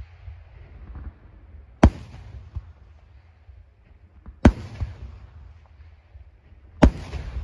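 Aerial firework shells bursting overhead: three sharp bangs about two and a half seconds apart, each trailing off in a low rolling rumble.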